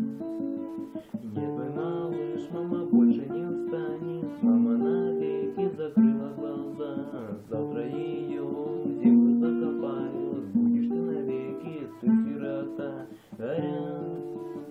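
Acoustic guitar playing, with chords strummed and picked in a steady rhythm.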